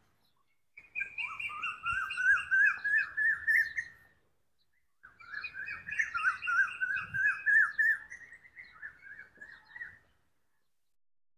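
A bird chattering in two bursts of rapid, wavering calls, about three and five seconds long, with a short gap between them.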